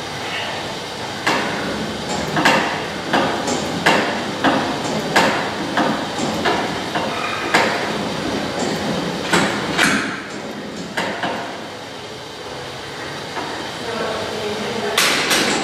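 Cable lat pulldown machine's weight stack and cable clanking and rattling as the bar is pulled down and let back up, a run of irregular metal knocks that thins out after about eleven seconds, with a louder cluster of knocks near the end.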